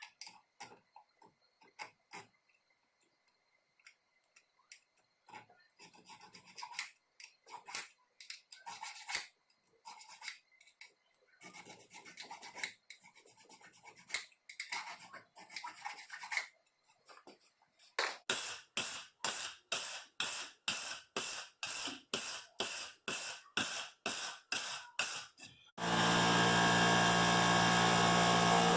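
Scattered clicks and knocks of parts being handled, then a run of regular rubbing strokes, about two a second, of hand work on a workpiece. Near the end a power tool starts up and runs steadily, louder than everything before it.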